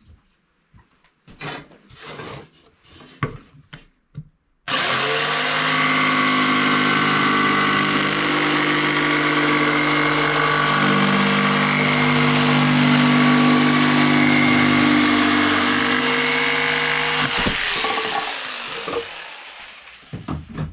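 A few knocks of handling, then about five seconds in a jigsaw with a fine-tooth blade starts and runs steadily, cutting through birch plywood. About twelve seconds later it switches off and winds down over a couple of seconds, followed by a few more knocks.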